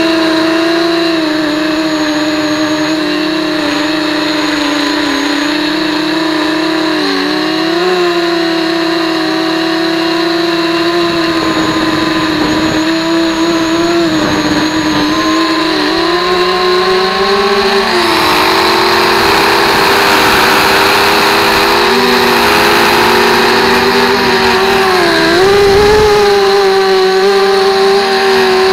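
Electric motor and propeller of an FPV model aircraft, heard through its onboard 808 keychain camera: a steady whine whose pitch wavers slightly with throttle. A rush of wind grows louder about two-thirds of the way in.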